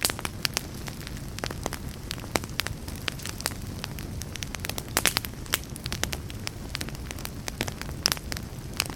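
Wood fire burning in a fireplace: many sharp crackles and pops, irregular and frequent, over a steady low rumble of flames.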